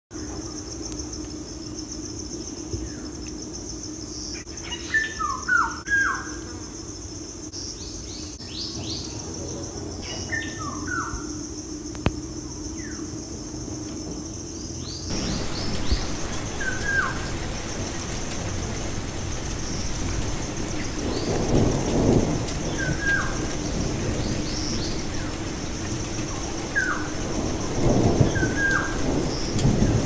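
Birds chirping, short repeated calls over a steady hiss. About halfway through, the background changes suddenly to a fuller hiss like rain, with two low rumbles like distant thunder in the second half.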